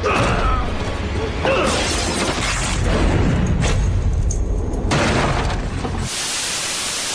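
Action-film soundtrack of music with voices and a few sharp crashes, then about six seconds in it cuts abruptly to the steady hiss of television static.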